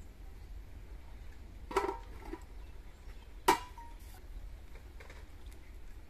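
A metal ladle knocks twice against a metal cooking pot (kadai) over a wood fire, each a short clank with a brief ring, the second one louder.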